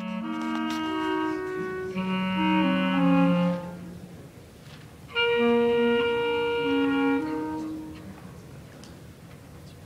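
Two clarinets playing a slow duet in held notes, two lines sounding together. They play two phrases with a pause of about a second and a half between them, and the second phrase ends and dies away a couple of seconds before the end.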